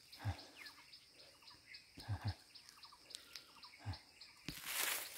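Outdoor chirping: a faint high chirp repeating about three times a second, with a few short bird calls, over a handful of soft footfalls. A loud rush of noise comes in near the end.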